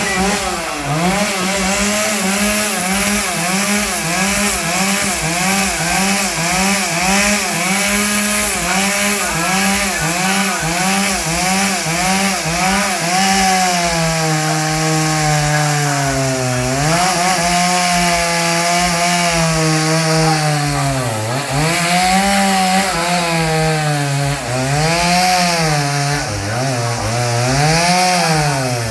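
Two-stroke chainsaw running hard and cutting wood. Its pitch sags and recovers over and over as the chain bites, then drops deeper and climbs back in slower sweeps in the second half.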